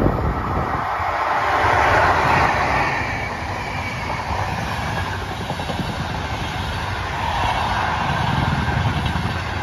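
Trenitalia Intercity train with E414 electric locomotives passing close at speed: a steady rush and rumble of coach wheels on the rails. The sound swells about two seconds in and again near the end.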